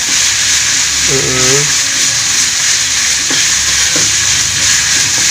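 Ground red chili and spice paste sizzling steadily as it is sautéed in an aluminium wok, a slotted metal spatula stirring it around the pan.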